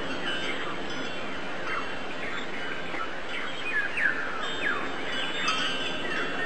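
Birds chirping: many short, quick downward-sliding calls, overlapping and irregular, over a steady background hiss.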